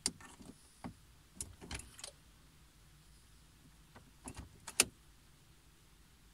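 Audi A6 key fob pushed into the dashboard ignition slot and turned: a string of sharp plastic and mechanical clicks in two clusters, the loudest click about five seconds in. The engine does not crank, a no-start that the owner puts down to the electronic steering lock (ELV).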